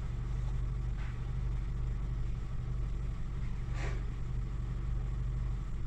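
Honda Accord engine idling steadily, heard from inside the cabin; the engine has a camshaft position sensor 'B' no-signal fault (P0365).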